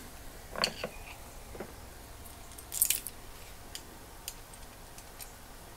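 Small screws being picked up and started into a ratchet head's cover plate with a screwdriver: a few light metal clicks and faint handling scrapes, the loudest a brief cluster of clicks about three seconds in.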